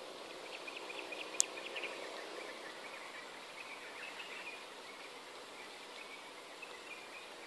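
Insects chirping in the background in short repeated trills, with a scatter of faint ticks and one sharp click about a second and a half in.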